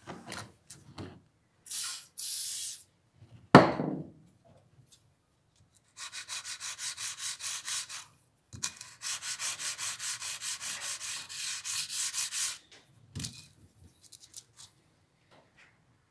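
Aerosol can of WD-40 spraying in two short hisses, then a sharp knock. After that comes a steel screwdriver blade rubbed back and forth on oil-wetted 1200-grit wet-and-dry sandpaper, in quick even strokes about four or five a second, in two runs with a brief pause between them.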